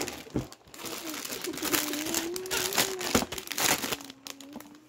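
Plastic packaging crinkling and rustling in irregular crackles as toy claw machine parts are handled and pulled from their bags. A voice holds a long, steady low note through the middle.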